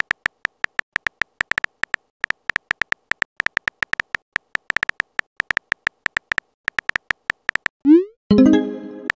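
Phone keyboard typing sound effects: rapid, irregular clicks as a text message is typed. Near the end the clicks stop, a short rising swoop marks the message being sent, and a pitched chime follows and fades.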